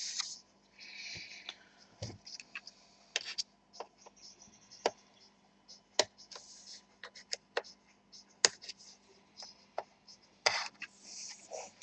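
Scattered sharp clicks and brief scrapes of a tool and fingers working at the seam of a laptop's bottom cover to pry it off, with the loudest clicks about six and eight and a half seconds in.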